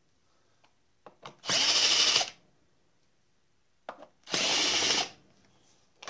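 Cordless drill/driver backing out the top cover screws of a Husqvarna 51 chainsaw, in two short runs of under a second each, about a second and a half in and again near four and a half seconds.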